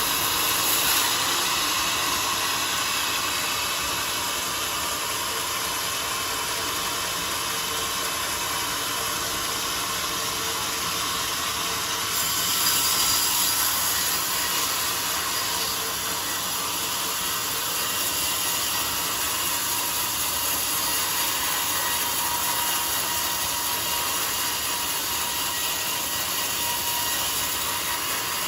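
Band sawmill running steadily, its blade sawing through a jackfruit log, with a brief louder swell about halfway through.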